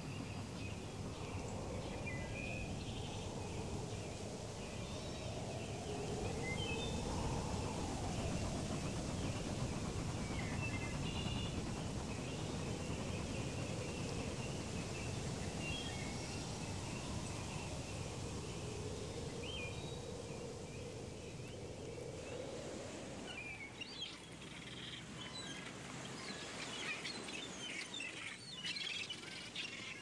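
Outdoor nature ambience: a steady background hiss with birds chirping every few seconds. About two-thirds of the way through the background changes and the bird calls become busier and more frequent.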